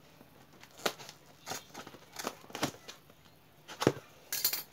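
A tape-wrapped cardboard parcel being handled and turned over on a tiled floor: a series of light taps and crinkles of the plastic wrapping, a sharper knock about four seconds in, and a short hissing rustle near the end.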